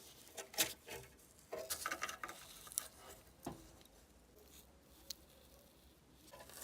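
Small hard parts being handled: a few light clicks and knocks, several close together in the first half and a duller knock near the middle, then only faint low background noise with one more click.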